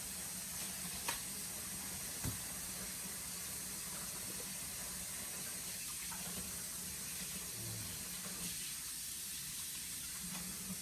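Steady low hiss and hum of room noise, with two faint light clicks about one and two seconds in.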